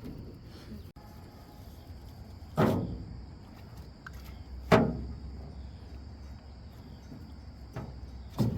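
Three heavy knocks, the loudest about halfway through, over a steady high-pitched insect drone.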